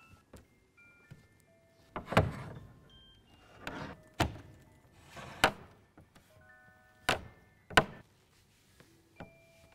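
Knife-blade pointe shoes striking the lid of a grand piano: about six loud, sudden knocks from about two seconds in, some drawn out into a short scrape. Sparse, high, chiming single notes like a music box sound between them.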